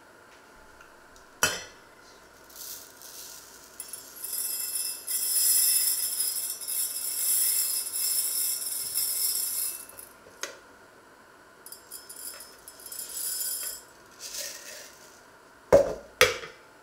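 Kitchenware being handled: a sharp clink early on and two loud clinks close together near the end, with stretches of high, hissing rustle between them.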